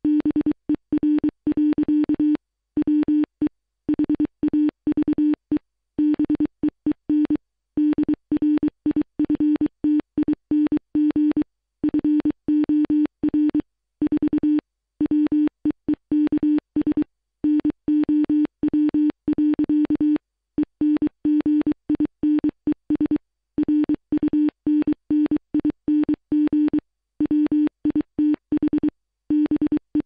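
Low, buzzy electronic tone keyed on and off in short and long beeps: a Morse code SOS distress signal, repeated over and over.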